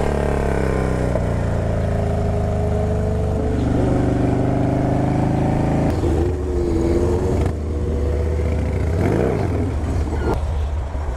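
Harley-Davidson Dyna Low Rider's V-twin engine running under way with wind rushing past. Its pitch falls near the start and shifts in steps a couple of times, with a brief drop in loudness about seven seconds in.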